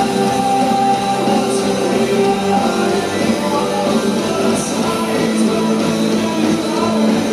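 Full rock band playing live: electric guitars, bass guitar, drums and keyboards, loud and continuous.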